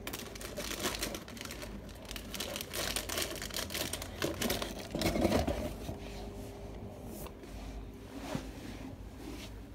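Plastic packaging crinkling and rustling as it is handled, with scattered light clicks and knocks. The sound is busiest in the first few seconds and sparser after.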